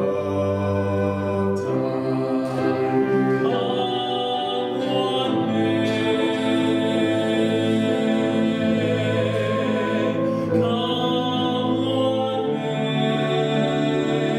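A man singing a slow ballad in a trained, operatic style over instrumental accompaniment, holding long notes with vibrato.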